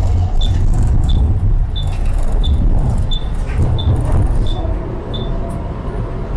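Tram running, a steady low rumble of the car moving along the rails. Over it, a short high beep repeats about one and a half times a second, eight times, then stops about five seconds in.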